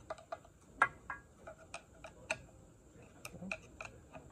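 Irregular light metallic clicks and taps of snap-ring pliers and a screwdriver working a hardened steel C-clip on an axle shaft, as the clip is spread and walked out of its groove. One sharper click comes about a second in.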